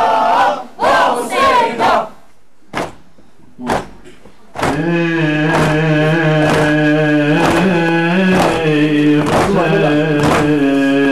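A crowd of men chanting in unison for about two seconds, then a brief lull. From about halfway through, a mourning chant or hymn begins: a held, droning melody with a sharp beat about once a second.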